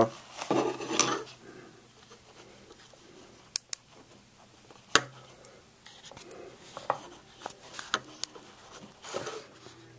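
Scattered small metallic clicks and taps of hands working a perforated 16-gauge steel back plate out of a home-made condenser microphone capsule built in a paint-can lid.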